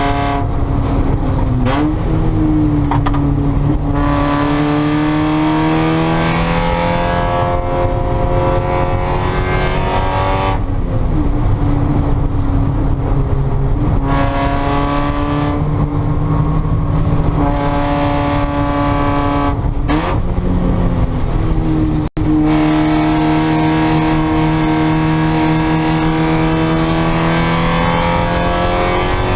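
Spec Miata's four-cylinder engine at racing speed, its pitch repeatedly climbing as it revs up and dropping back, as happens through gear changes and corners. The sound cuts out for a split second about two-thirds of the way through.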